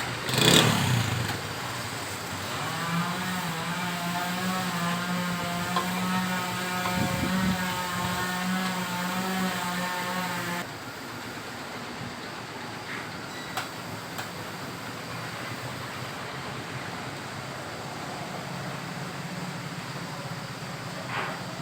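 Honda CD 70's single-cylinder four-stroke engine running with a steady, slightly wavering hum; about ten seconds in the sound drops abruptly to a quieter background with a few clicks.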